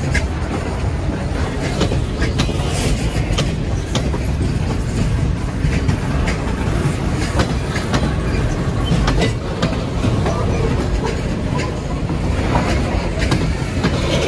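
A train rolling past close by: a steady rumble with the wheels clicking over rail joints at irregular intervals.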